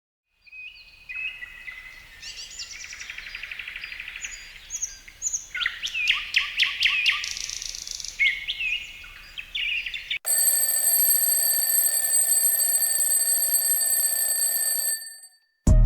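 Birds chirping and trilling for about ten seconds, then a steady ringing alarm that lasts about five seconds and stops suddenly.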